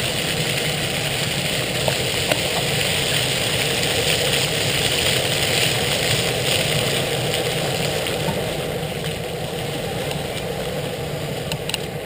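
Water fountain jets spraying up and splashing down onto paving, a steady rushing hiss, picked up through a GoPro Hero 2's open, non-waterproof door.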